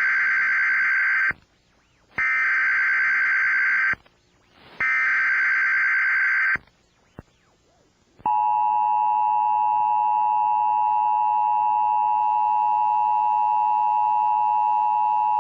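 Emergency Alert System signal: three short bursts of modem-like SAME header data about a second apart, then the steady two-tone EAS attention signal starting about eight seconds in and held from there on. It heralds a child abduction alert.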